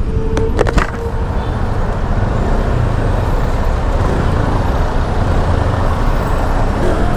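Steady road noise on a motorcycle ride through traffic: the bike's engine and the surrounding vehicles.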